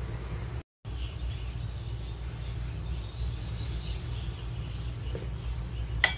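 Steady low rumble of a pot of soup boiling on a portable gas stove, dropping out briefly about a second in, with a sharp metallic click just before the end.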